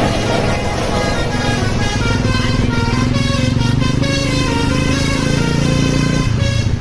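Bus 'telolet' basuri multi-tone air horn playing a tune of quick stepped notes, over the bus engine running.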